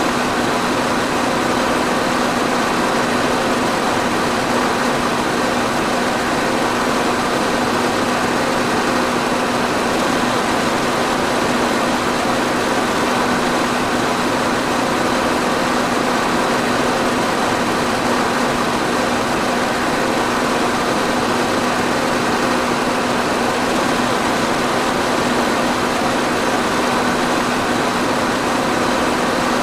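Electric fan running steadily: an even rush of air with a constant low motor hum underneath.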